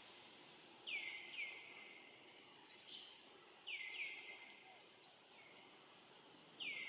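A bird calling: short, high chirps that each sweep sharply downward, two in quick succession about a second in, two more near four seconds and one near the end, over a faint outdoor hiss.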